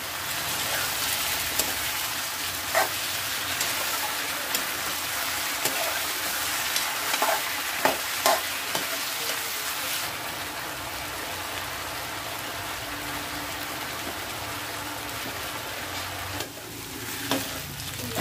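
Sliced potatoes sizzling in hot oil in a black kadai, with a steel spoon scraping and clicking against the pan as they are stirred. The sizzle eases off a little about ten seconds in, and the clicks fall mostly in the first half, with a few more near the end.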